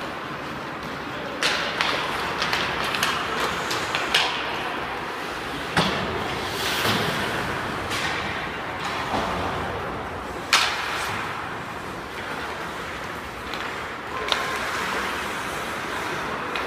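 Ice hockey play in an indoor rink: skates scraping the ice and sticks clacking, with several sharp knocks of the puck or players against the boards, echoing in the rink.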